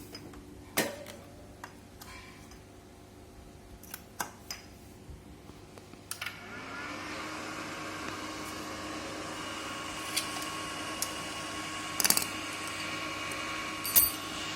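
Inverter welding machine switched on about six seconds in: its cooling fan spins up to a steady hum with a high whine, after a few sharp clicks and knocks. The welder is running normally after its bulging filter capacitor was replaced.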